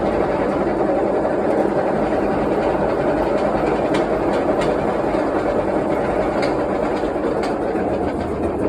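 Washing machine running with a loud, steady mechanical noise and a few faint clicks, an abnormal noise from the machine.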